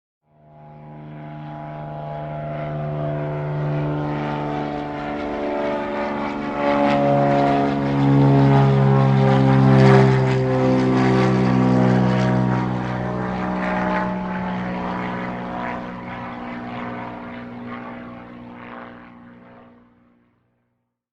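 Propeller airplane flying past: its droning engine note rises out of silence, is loudest about halfway through, drops in pitch as it goes by, and fades away near the end.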